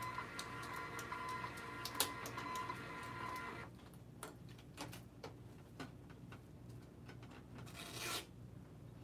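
A printer mechanism running with a steady whine, with a sharp click about two seconds in, then cutting off suddenly about three and a half seconds in. After that, light clicks and knocks of parts being handled, and a short scraping rub near the end.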